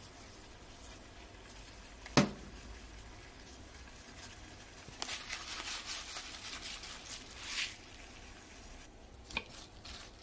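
A single sharp click about two seconds in, then a few seconds of quick, light pattering and rattling as white sesame seeds are shaken over chopped cabbage in a plastic bowl.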